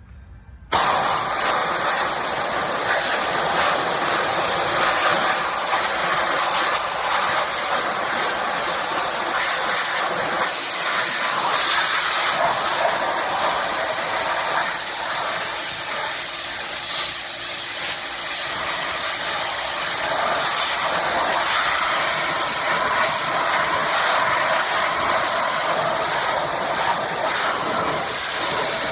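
Electric pressure washer spraying a high-pressure water jet: a steady, loud hiss that starts suddenly about a second in.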